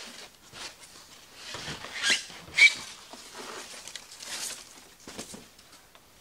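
White foam packing being pulled out of a cardboard box and tossed aside: irregular rustling and rubbing, with a few short squeaks of foam. The loudest squeak comes about two and a half seconds in.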